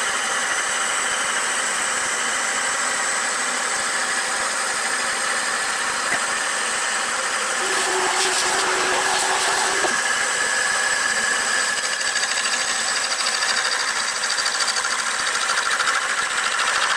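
Metal-working lathe running steadily with a wooden cylinder spinning in it and its tool cutting the wood: a steady motor and gear whine with the hiss of the cut. The sound changes briefly about eight seconds in.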